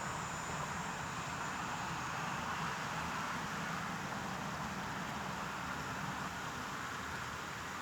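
Steady, unchanging white-noise sleep sound: an even hiss with a low rumble underneath, no rises, breaks or distinct events.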